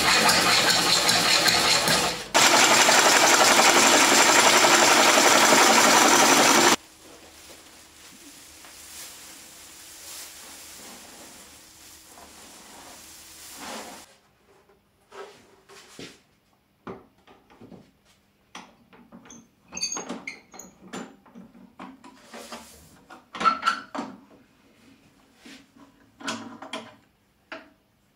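Gouge cutting a large wooden bowl blank spinning on a Oneway lathe: a loud, steady shaving noise that breaks off briefly about two seconds in and stops after about seven seconds, leaving a much quieter steady hum. From about halfway on there are scattered knocks and clicks as the bowl and chuck are handled on the stopped lathe.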